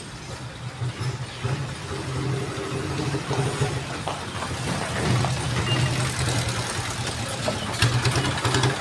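A motor engine running steadily nearby with a low, slightly pulsing hum, like a vehicle idling at the roadside.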